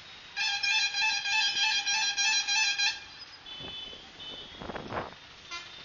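A vehicle horn sounds in one steady blast of about two and a half seconds, followed by the rush of traffic going by and a brief second toot near the end.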